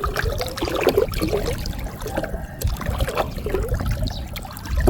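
Water trickling and splashing in small irregular bursts as a gill net is hauled out of flood water, with dripping and light handling clicks.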